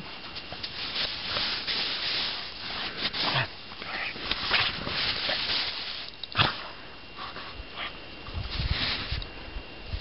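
A dog rolling and squirming on her back in crusty snow: irregular bursts of snow crunching and rustling against fur, with one sharper crunch a little past the middle.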